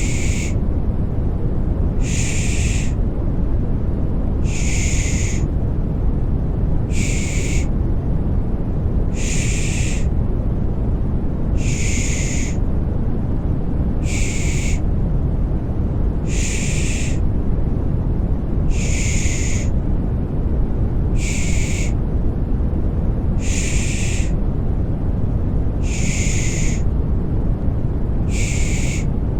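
Baby-soothing 'shh' shushing sound, repeated in even hissing pulses about every two seconds, over a steady deep rushing white-noise bed.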